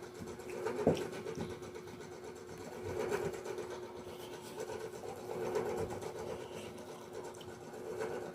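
Eating sounds, with soft irregular chewing and a sharp click about a second in, over a steady mechanical hum.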